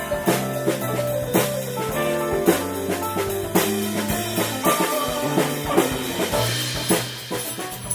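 Instrumental jazz-rock improvisation by a quartet: drum kit keeping a steady beat under bass guitar, electric guitar and keyboards.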